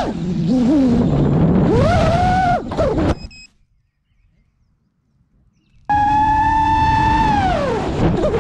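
FPV quadcopter's brushless motors and propellers whining loudly, the pitch dipping and rising with the throttle, then a crash about three seconds in: a few clattering impacts and a short burst of high beeps, after which the motors stop and it falls near silent. About six seconds in, the motor whine cuts back in abruptly at a high pitch, falls, then climbs again.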